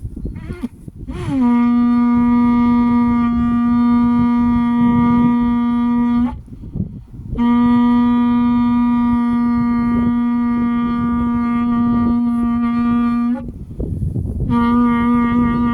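Shofar (ram's horn) blown in long, steady blasts: two held notes of about five to six seconds each, with the pitch sliding up into the first, and a third blast starting near the end.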